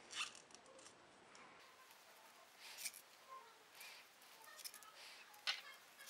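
Faint scratching and a few scattered soft ticks of a plastic crochet hook drawing yarn through stitches while working single crochet.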